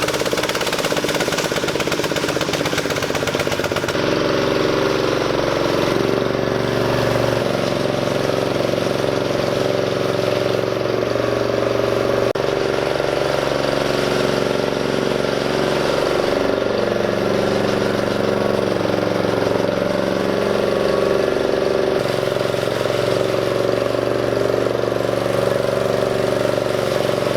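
Small gasoline engine of a walk-behind concrete power trowel running steadily as it finishes the slab. Its tone shifts abruptly every few seconds.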